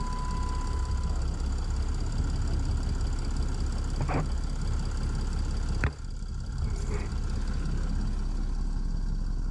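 Chrysler 300C's OM643 diesel engine idling steadily with its Drake Box tuning box disconnected from the fuel rail pressure sensor. A steady electronic beep stops about a second in, and a few sharp clicks come about four, six and seven seconds in.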